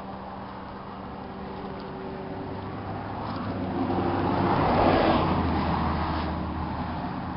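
A motor vehicle passing by: engine and tyre noise swell to their loudest about five seconds in, then fade.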